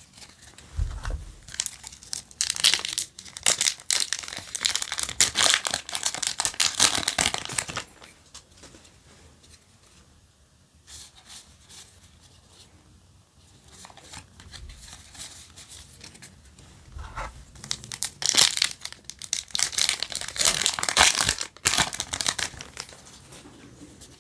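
Crinkling and tearing of a foil Yu-Gi-Oh! booster pack wrapper, in two long spells, one starting about two seconds in and one in the last third, with quieter rustle of trading cards being handled between.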